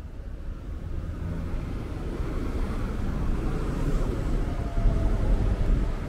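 City street ambience fading in: a steady low rumble of traffic.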